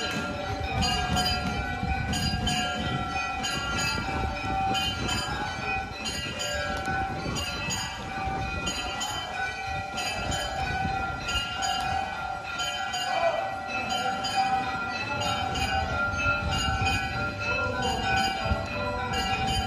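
Metal temple bells struck again and again, roughly one to two strikes a second, their ringing tones overlapping and hanging on between strikes over a low rumble.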